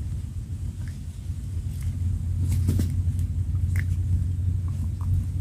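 Low, steady rumble of wind on the microphone, with a few light clicks and taps from handling a small tilapia and its hook, from about halfway through.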